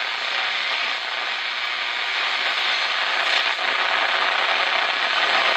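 Steady static hiss from the speaker of a 1960s Wards Airline tube radio, with no station coming through clearly.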